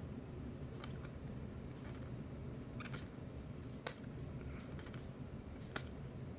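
Baseball cards being flipped through by hand: a few faint, sharp clicks of card against card over a steady low hum.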